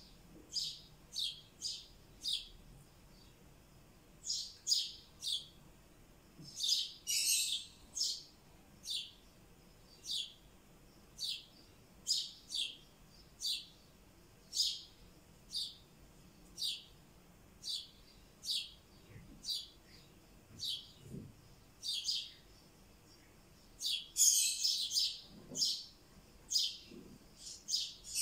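Rosy-faced lovebird calling: a long run of short, high-pitched chirps, about one a second, with quicker flurries about seven seconds in and again near the end.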